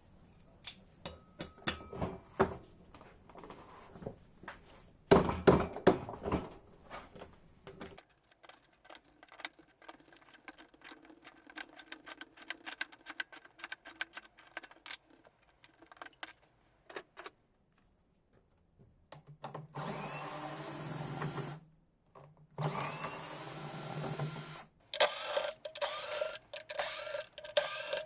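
Workshop sounds of a washing machine being taken apart: scattered clicks and knocks of metal and plastic parts being handled. About two-thirds of the way through, a handheld power tool runs twice for about two seconds each, and quick clicking and rattling follows near the end.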